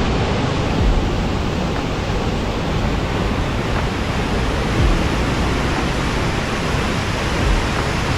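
A loud, steady rushing noise, even from low to high, that cuts in and out abruptly, with a soft bass beat thumping faintly beneath it.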